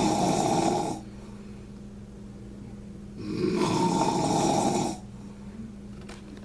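A man snoring really loudly: one snore ends about a second in and another runs from about three to five seconds in, with quieter breathing between.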